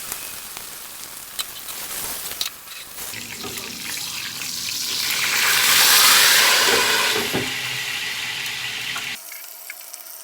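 Cured pork frying in hot oil in a pan: a steady sizzle with scattered small pops, swelling louder to a peak about six seconds in, then easing off.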